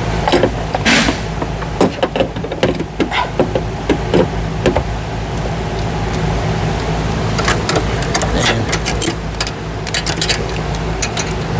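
Scattered clicks and clanks of hand tools and metal parts being handled under a car's hood, over a steady low hum. A short hiss comes about a second in.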